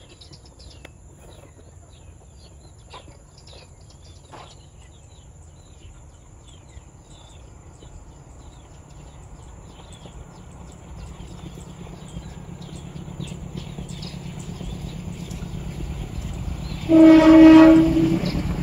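Sri Tanjung passenger train approaching: a low rumble grows steadily louder through the second half, then near the end the locomotive's horn gives one long blast of about a second.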